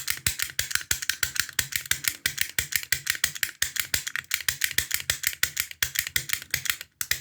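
A pick gun snapping rapidly against the pins of an older Ruko oval cylinder in an ASSA padlock: a fast, even train of sharp clicks, about nine a second, with brief pauses twice.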